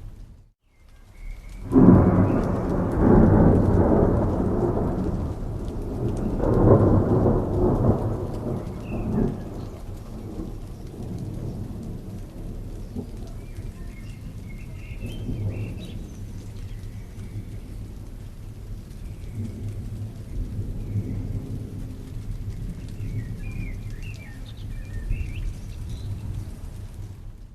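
Thunderstorm: rain falling steadily, with two loud rolls of thunder in the first ten seconds and lower rumbling after. It starts after a brief moment of silence.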